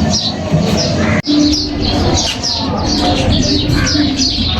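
Small birds chirping over and over, short high notes that fall in pitch, several each second.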